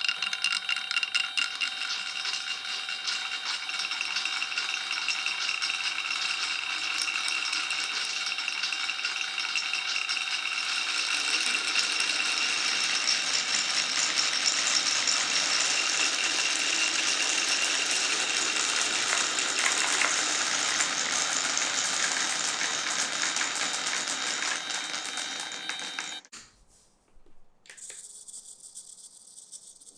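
Many glass marbles rolling and clattering down a wooden marble run: a dense, continuous rattle of small clicks that swells slightly in the middle and cuts off suddenly near the end.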